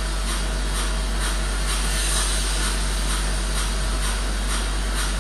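Soft, regular footfalls of sneakers jogging in place on a tiled floor, about two a second, under a loud steady whirring noise with a low hum.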